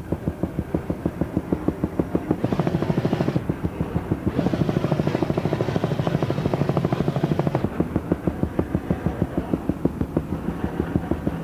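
Helicopter rotor thudding in rapid, even beats, about four to five a second, over a steady engine drone.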